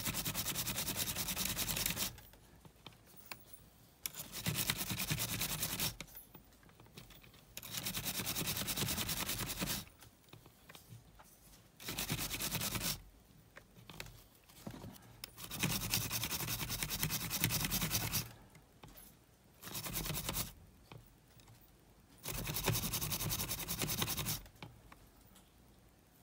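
Toothbrush bristles scrubbing the small motor of a Sony Walkman cassette mechanism in rapid strokes. The scrubbing comes in about seven bouts of one to three seconds each, with short pauses between them.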